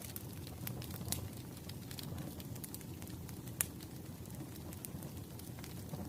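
Wood fire burning with a steady low rumble and scattered sharp crackles and pops, the loudest about a second in and at three and a half seconds.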